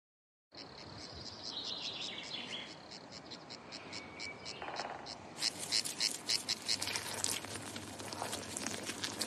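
Insects chirping in a fast, even pulse over a soft hiss, starting after half a second of silence and growing louder about five seconds in.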